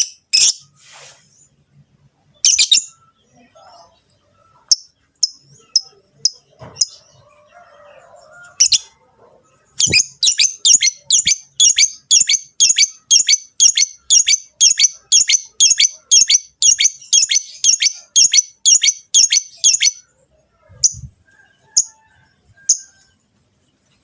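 Lovebirds (peach-faced and Fischer's) giving shrill courtship calls: scattered single chirps, then about ten seconds of rapid, evenly repeated calls, roughly three a second, and a few more single chirps near the end.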